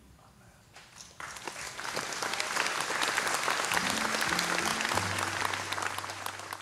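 Audience applauding, starting about a second in once the final chord has faded and holding steady. A few low sustained instrument notes sound under the clapping in the second half.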